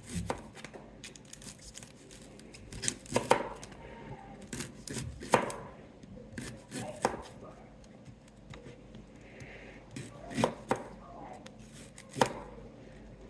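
Kitchen knife slicing fresh ginger root, with single cuts ending in sharp knocks every second or two at an uneven pace.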